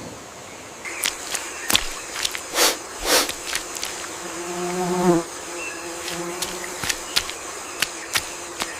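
Insects buzzing, with a louder pitched buzz about halfway through, like an insect passing close. Under it runs a faint steady high insect hum, broken by many scattered sharp clicks.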